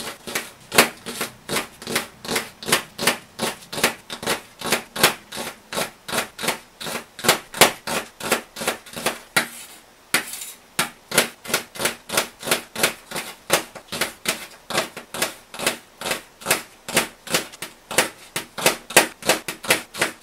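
Kitchen knife chopping a green onion on a stainless steel cutting board: a steady run of sharp knocks, about three a second, as the blade hits the steel. There is a brief pause about halfway through.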